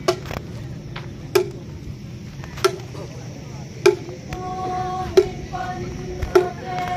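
A slow, even percussion beat, one sharp strike about every second and a quarter. Voices singing together in long held notes join about four seconds in.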